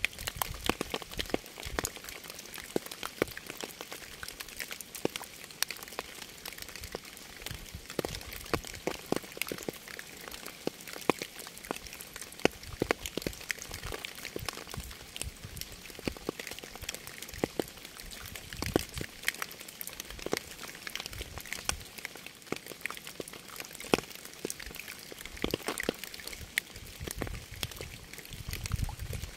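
Steady rain, a dense patter of separate drops landing close by over a constant hiss.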